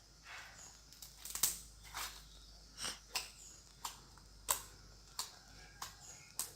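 Slime being worked by hand, giving irregular sharp pops and clicks about once or twice a second.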